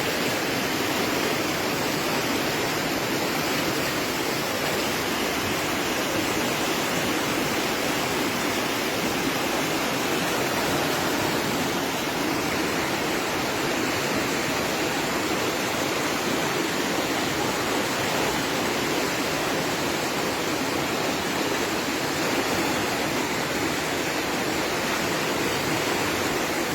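Floodwater rushing past in a steady torrent, an even roar of running water.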